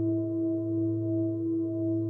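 Himalayan singing bowl sounding a steady, sustained hum of a few overlapping tones, with a slow wavering pulse in its loudness.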